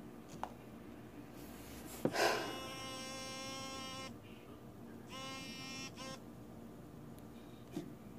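A sharp click, then a mobile phone buzzing: one steady buzz of about two seconds, and after a second's pause a shorter buzz of under a second with a brief one after it.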